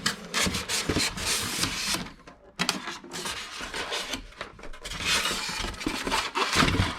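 Cardboard box being opened and handled: cardboard flaps and inserts rubbing and scraping against each other in a run of short strokes, with a brief pause about two seconds in.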